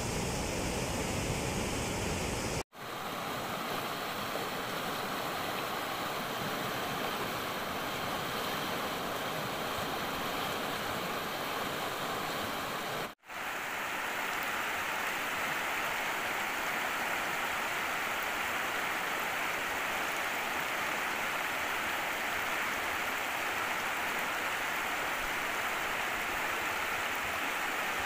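Fast-flowing muddy floodwater rushing and churning, a steady noise that cuts out for an instant twice.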